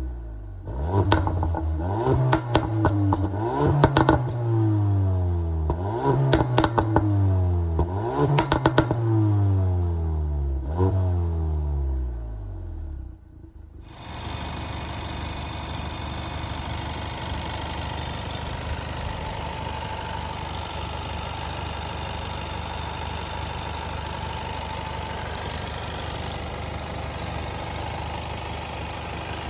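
Ford Focus ST's 2.3-litre four-cylinder petrol engine revved in about five quick blips, each falling back with crackling pops and bangs from the exhaust. After a brief dip about 13 seconds in, it settles into a steady idle.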